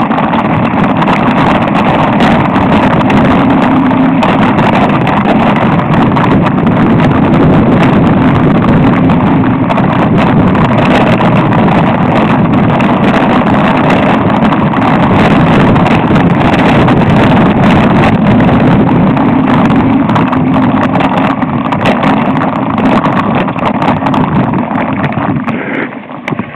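Loud, steady wind buffeting and rattling from a camera mounted on a mountain bike rolling over a dirt track. It drops off sharply near the end as the bike slows.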